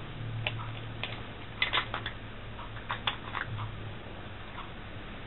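Variares metal Beyblade top spinning on the floor of a plastic stadium: a faint, steady low hum with a few light clicks scattered through it.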